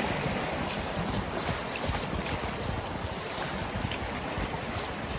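Steady rushing whitewater of a creek rapid around an inflatable kayak, with wind rumbling on the microphone.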